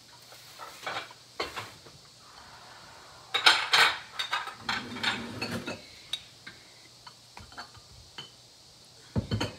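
Glass and ceramic pieces clinking and knocking against each other as they are handled and set down. The loudest clatter comes about three and a half seconds in, with lighter clinks and ticks after it.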